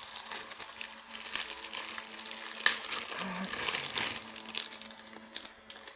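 Packaging being crinkled and rustled by hand as it is opened: a dense, continuous run of fine crackles.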